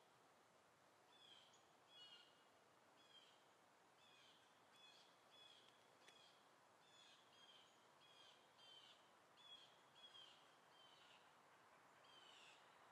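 Faint bird chirping: short, high calls repeating about once or twice a second, often in pairs, over a low steady outdoor hiss.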